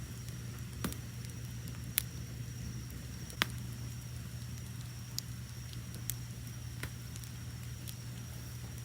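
Wood fire burning with a steady low rumble and scattered sharp crackles and pops, about one a second, two of them louder in the first half, over a steady high trill of crickets chirping.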